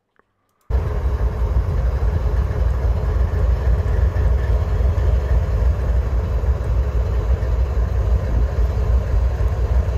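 CSX diesel-electric locomotive running as it creeps along the track, a steady heavy low rumble that starts suddenly about a second in.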